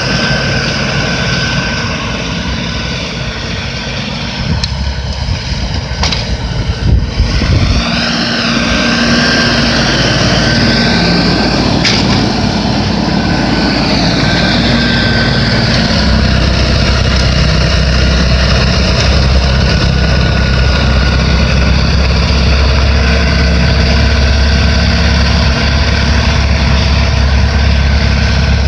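LS XR4155H tractor's diesel engine running while plowing snow. A few knocks and some shifts in pitch come around the middle, and a heavier low drone follows in the second half.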